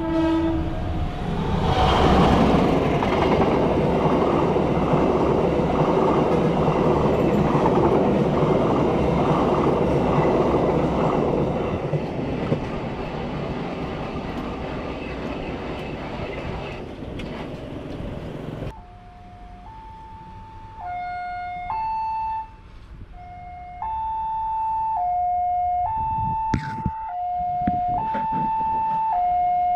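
A train passing over the level crossing, a loud rumble and clatter that fills the first two-thirds. Then the crossing's electronic warning alarm sounds, alternating steadily between a high and a low tone about a second each, with a few sharp knocks near the end.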